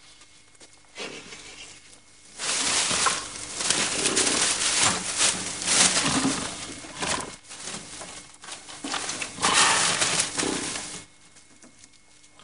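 Dry straw rustling and crackling as a sheaf of straw is handled and bound with rope. The rustling rises about two seconds in, goes on in uneven rushes, and stops shortly before the end.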